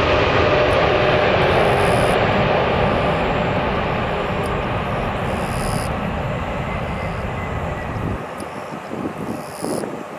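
Jet engines of a Boeing 747-400F freighter on landing approach, passing low overhead and then moving away, the jet noise slowly fading. About eight seconds in, the low rumble drops away suddenly, leaving fainter engine noise.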